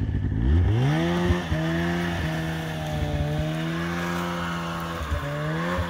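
Snowmobile engine revving up from idle about half a second in, then running steadily under load as it drags an elk carcass on a tow rope through deep snow. Its pitch dips briefly near the end and climbs again.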